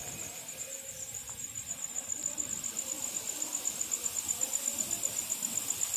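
Night insects, such as crickets, trilling in a steady high-pitched chorus that pulses rapidly and evenly.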